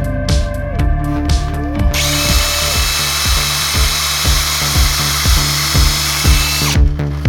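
Electronic background music with a steady beat. Under it, a power drill twice speeds up, runs and slows down again in the first three seconds.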